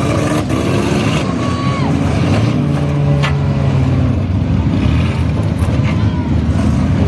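Demolition derby minivans revving their engines, pitches rising and falling, with a few sharp bangs of impacts.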